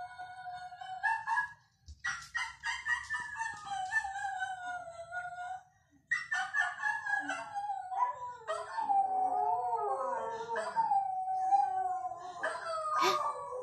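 Dogs howling in long, drawn-out notes that slide slowly down in pitch, with short breaks between them. From about eight seconds in, several howls overlap.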